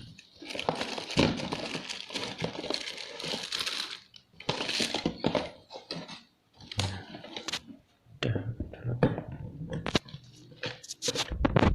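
Plastic packaging crinkling and tearing as a pack of small camera accessories is opened and handled, with scattered clicks and rustles.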